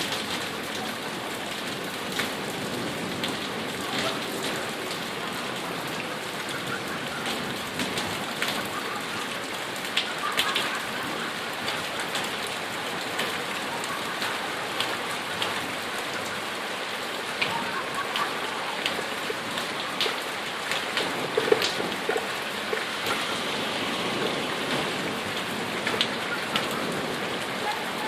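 Heavy rain pouring steadily, with frequent sharp ticks of drops striking hard surfaces.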